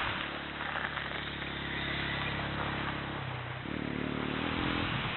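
A small motor vehicle's engine running steadily, its pitch stepping up a little over three seconds in, over a steady hiss.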